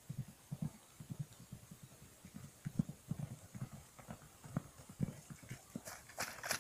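Hooves of a small group of horses and a foal running over soft, grassy ground: a quick, irregular patter of dull thuds, with sharper, closer hoof strikes near the end.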